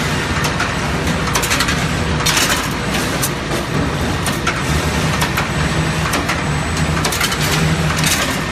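CNC rebar bending machine running: a steady motor hum with irregular sharp metallic clacks and clatter as the bending head forms steel bar into stirrups.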